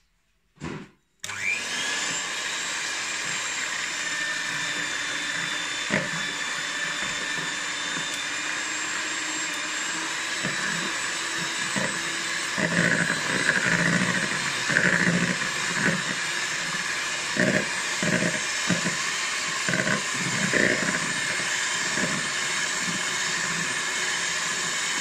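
Electric hand mixer running at a steady speed, its twin wire beaters whipping egg whites into foam in a plastic bowl. It switches on about a second in, and from about halfway on the beaters knock irregularly against the sides of the bowl.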